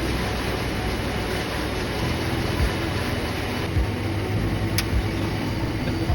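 SMT pick-and-place machine running: a steady mechanical hum and whir, with a few soft low thumps about a second apart and a brief click near the middle.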